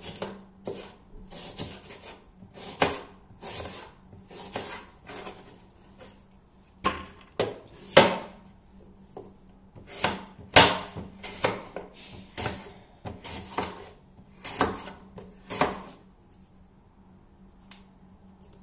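Kitchen knife slicing fruit on a plastic cutting board, the blade tapping through onto the board in irregular knocks about two a second, with a short pause about six seconds in, stopping a couple of seconds before the end. The knife has gone dull.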